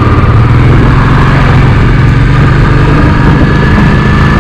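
Royal Enfield motorcycle engine running steadily at low revs, as heard from the rider's own bike.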